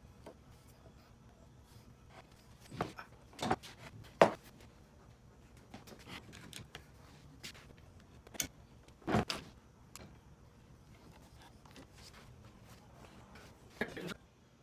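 A handful of separate knocks and clunks over faint room tone, the loudest about four seconds in and another pair about nine seconds in.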